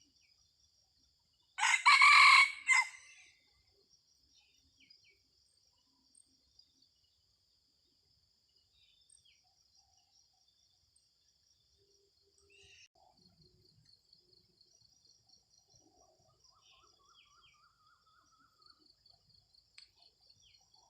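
A red junglefowl rooster crows once, loud and short, about two seconds in. A steady high insect trill runs underneath, with faint bird chirps later on.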